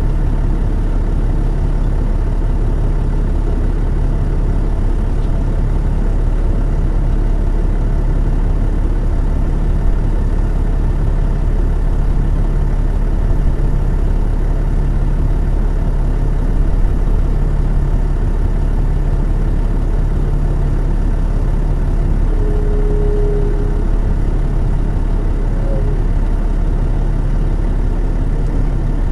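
Diesel engine of an MCI D4000 transit coach, a Detroit Diesel Series 60, running steadily at an even level, heard from on board the bus.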